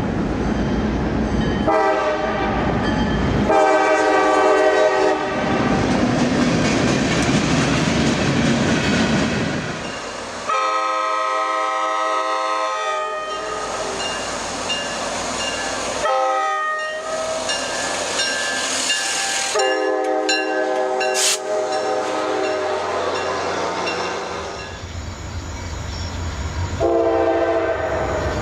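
Diesel locomotive multi-chime air horns sounding in a string of short clips cut together: about six separate horn blasts of different lengths. Between and under them, the rumble of passing trains and wheels clacking over rail joints.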